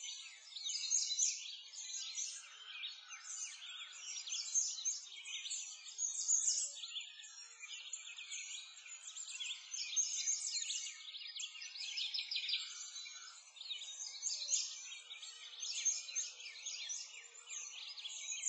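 Many small birds chirping at once, short quick calls overlapping without a break, all high-pitched.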